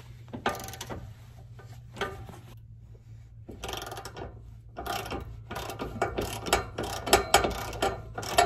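Ratchet wrench clicking as it loosens the bolts of a rear sway bar bushing bracket: a few scattered clicks at first, then fast, continuous ratcheting from about halfway through. A steady low hum runs underneath.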